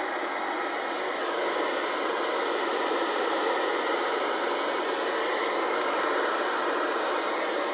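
Steady hiss of static from a NOAA weather radio receiver between broadcast messages.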